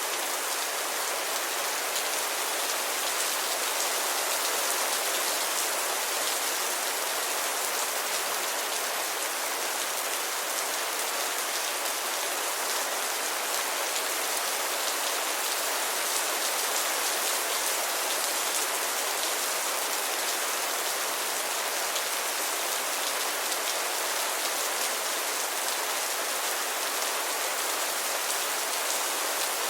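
Steady rain falling, an even hiss of many fine drops striking a surface, without let-up.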